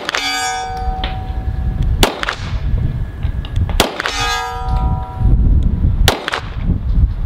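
Four pistol shots from an Arsenal Strike One, about two seconds apart, with a distant steel target clanging and ringing for about a second after the first and third shots. Strong wind rumbles on the microphone underneath.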